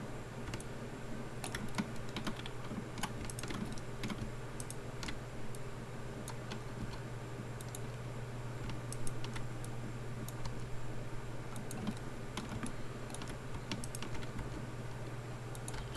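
Computer keyboard keys clicking at irregular intervals as shortcuts are pressed, over a steady low hum.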